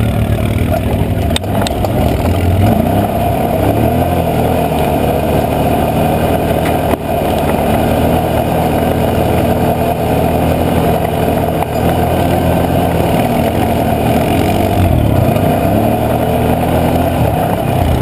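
Can-Am Outlander 650 XMR's V-twin engine running steadily as the ATV climbs a rough, rocky trail, its pitch rising and falling with the throttle. A sharp knock comes about seven seconds in.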